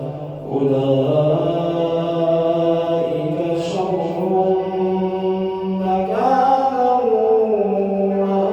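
A man reciting the Quran in the melodic, drawn-out style of tajweed recitation, holding long notes that slide between pitches. There is a short pause for breath just after the start, and a new phrase begins about six seconds in.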